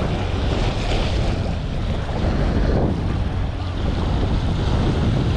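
Strong wind buffeting the microphone in a steady low rumble, with choppy harbour water washing beneath it.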